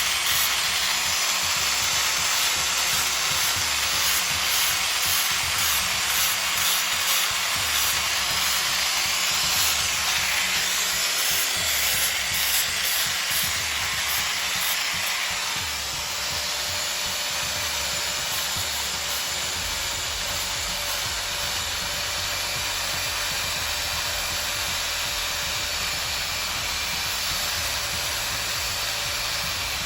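Power sander abrading a wooden tree root: a steady hissing grind, easing slightly about halfway through.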